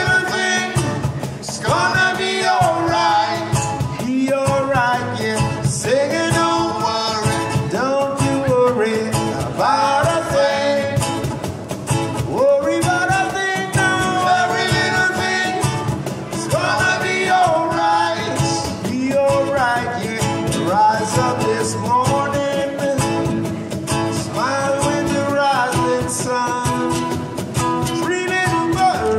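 Latin band playing live: a male lead singer over two strummed acoustic guitars and cajon.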